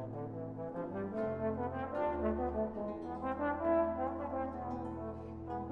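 Background music of slow, held chords over a sustained low bass line, the notes changing about every second.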